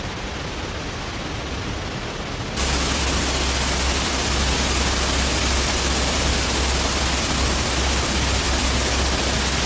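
Waterfall rushing in a steady roar of falling water, which gets louder and fuller about two and a half seconds in.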